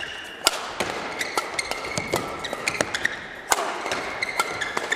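Badminton doubles rally: rackets sharply striking the shuttlecock again and again, the hardest hits about half a second in and past three seconds, with short squeaks of shoes on the court.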